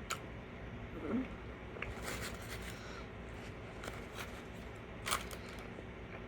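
Eating sounds of someone chewing chili cheese dogs, close to the microphone: wet mouth noises and scattered sharp clicks, the loudest about five seconds in.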